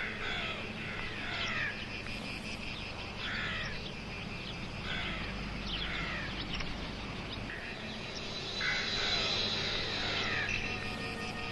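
Bird chirping outdoors: short, falling chirps repeated every second or two over a steady background of outdoor noise.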